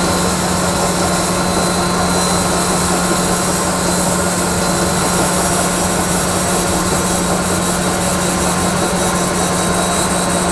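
Cylindrical (OD) grinder running, its wheel grinding a steel shaft under flowing coolant: a steady low hum with a constant hiss over it. It is a light clean-up pass, taking the last spots off the ground diameter.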